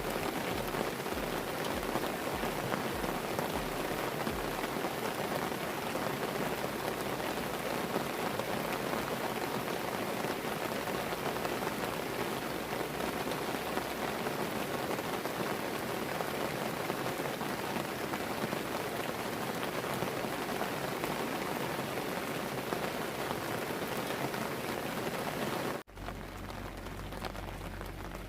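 Heavy rain falling steadily, a dense even patter. Near the end it cuts off abruptly and is replaced by a quieter hiss with a low steady hum.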